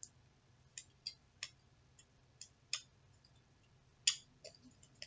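Irregular light clicks and crinkles of stiff clear plastic packaging being picked and pried open by hand, with one louder crackle about four seconds in.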